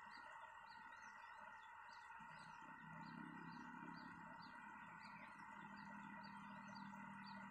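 Near silence with a faint high bird call repeating about twice a second, and a low hum coming in about two seconds in.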